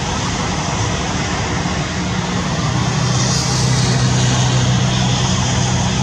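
A steady low engine drone over a constant rushing background noise, the drone growing louder about three seconds in, like a passing motor vehicle or aircraft.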